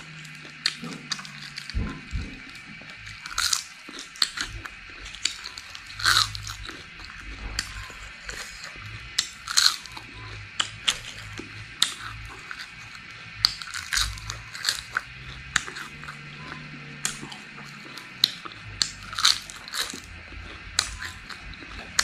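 Deep-fried cicadas being bitten and chewed: sharp, irregular crunches, often several a second, some much louder than others.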